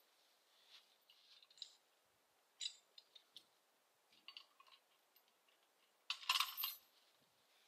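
Faint scattered metallic clicks and clinks, with a louder rattle lasting about half a second around six seconds in, from metal gear being handled at the back of a tractor.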